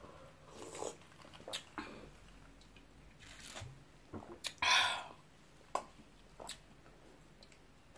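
Soft mouth sounds of drinking and swallowing: scattered small gulps and lip smacks, with one breathy exhale about four and a half seconds in.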